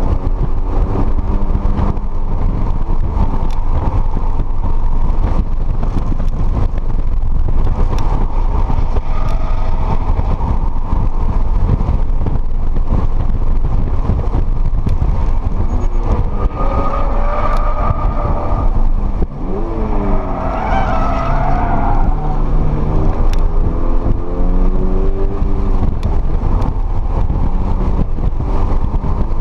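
Toyota GR86's 2.4-litre flat-four engine driven hard, heard from inside the cabin over heavy road and wind noise. The revs climb and fall through upshifts and downshifts, with a sharp drop and re-climb about two-thirds of the way through.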